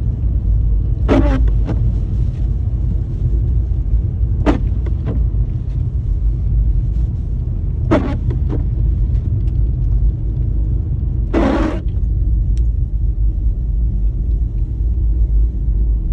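Car driving on a snow-covered road, heard from inside the cabin: a steady low rumble of engine and tyres, with four brief swishing noises about three and a half seconds apart.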